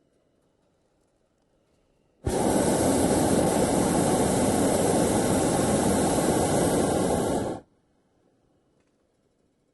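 Balloon taking off: a steady, loud rushing hiss of escaping air or gas that starts suddenly, holds even for about five seconds, and cuts off sharply.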